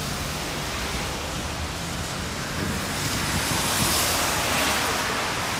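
Steady outdoor noise on a phone microphone: an even hiss with a low, uneven rumble beneath it, swelling slightly in the middle. It is the sound of a wet night street, with wind on the microphone.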